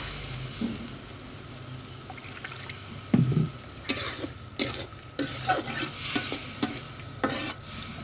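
A metal spatula stirring and scraping wet curry in a kadai over a low sizzle, just after water has been added. Sharp, irregular scrapes against the pan come thick from about three seconds in, with one heavier knock near the start of them.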